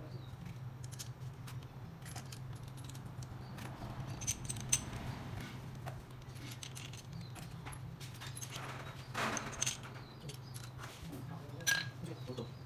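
Light metallic clinks and clicks of small engine parts and tools being handled as the camshaft bearing caps are fitted onto a Suzuki K6A cylinder head, with a few sharper clinks. A steady low hum sits underneath.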